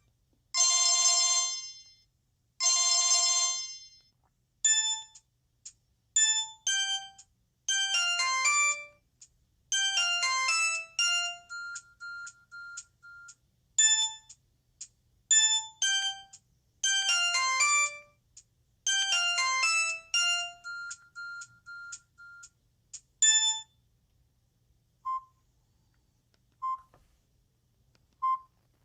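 Samsung GT-E2210b mobile phone's loudspeaker playing its built-in ringtones: two long electronic chord tones, then a quick melody of short beeping notes at changing pitches, then a few faint single beeps near the end.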